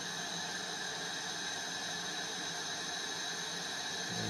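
Propane-oxygen glassworking torch burning with a steady hiss.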